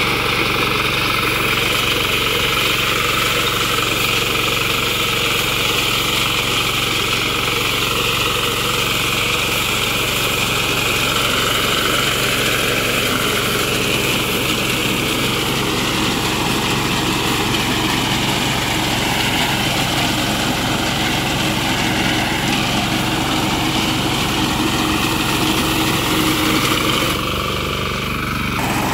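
Small engine and cutter bar of a walk-behind self-propelled reaper running steadily while it cuts standing rice. A little before the end the sound shifts and drops slightly.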